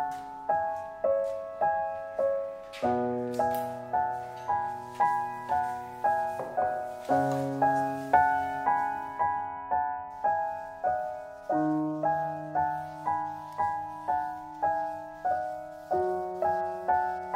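Background piano music: a gentle piece of broken chords, notes struck about twice a second, each fading before the next.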